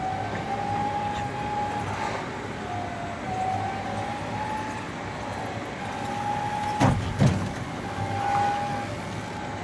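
A motor running steadily with a wavering whine that comes and goes. Two sharp knocks sound about seven seconds in.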